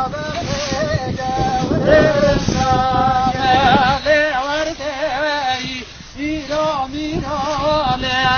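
Unaccompanied solo singing in Kurdish dengbêj style, the voice wavering and ornamented in long held phrases with a short break about six seconds in.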